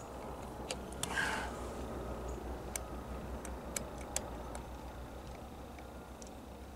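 Scattered sharp metal clicks, about seven of them, as a screwdriver and small parts are handled on a Singer 306 sewing machine's hook area. A short rustle comes about a second in.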